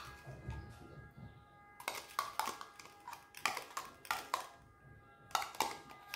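Metal teaspoon scraping and clicking against a plastic yogurt cup as yogurt is scooped out, in three short clusters of scrapes, over soft background music.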